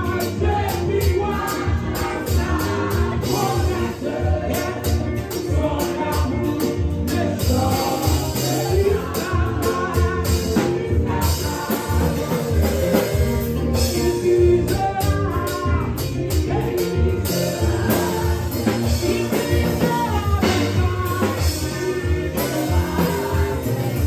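A group of women singing a gospel song together through microphones over amplified backing music with a steady beat.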